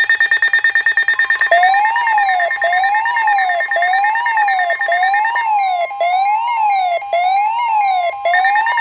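Electronic emergency-alert siren heralding a severe thunderstorm warning: rapid pulsing beeps over steady tones for about a second and a half, then a siren tone sweeping up and down about once a second over steady tones.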